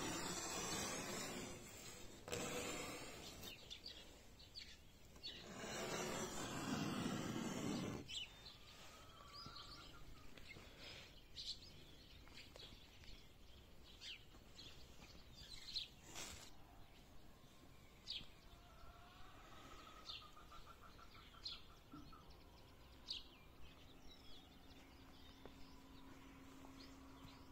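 Three bursts of rustling noise in the first eight seconds stop abruptly. After them, small songbirds give scattered short high chirps with a brief trill, and a low steady hum comes in near the end.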